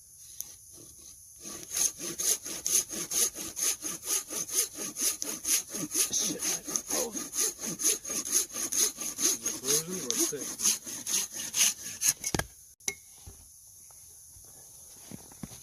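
Hand saw cutting through wood in quick, even back-and-forth strokes, about four a second. The strokes stop about twelve seconds in and start again near the end.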